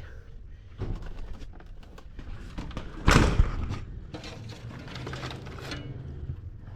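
A single sharp knock about three seconds in, with scattered light clicks and a low steady hum underneath.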